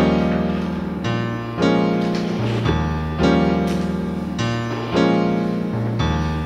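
Background piano music: slow chords struck about every second and a half, each fading away before the next, over low bass notes.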